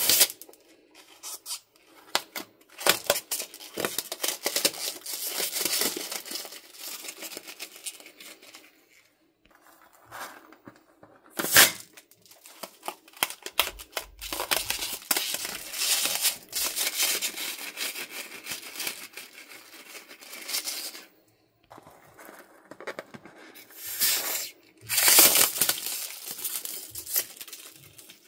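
Crackling, crinkling handling noise full of small clicks, coming in stretches of several seconds with quiet gaps between, and a sharp snap about twelve seconds in.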